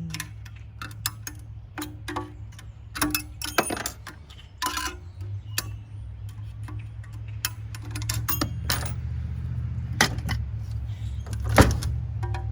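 Metal tools clicking, knocking and clinking against the metal parts of a Rinnai tankless water heater as it is worked open. A steady low hum comes in about five seconds in.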